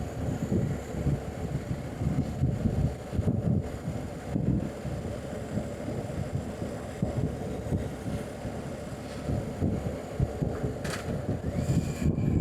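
Wind rumbling and gusting on the microphone of a motorcycle on the move, an uneven low buffeting that rises and falls every second or so.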